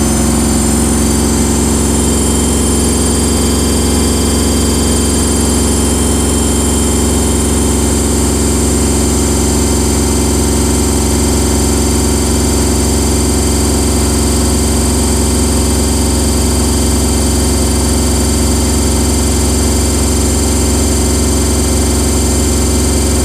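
Samsung washing machine running, its drum spinning at a steady speed: a loud, unchanging motor hum.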